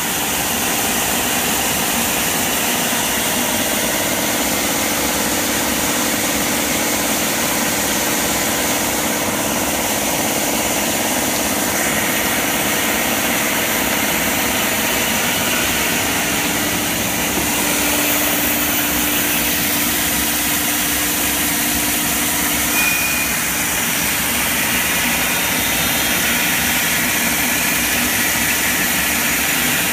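Horizontal wood band saw running steadily with its conveyor feed, a continuous machine noise that holds at one level, as a board is carried under the pressure rollers toward the blade.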